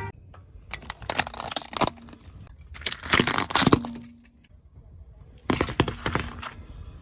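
Brittle objects cracking and crunching under a car tyre in three separate bursts of sharp crackles.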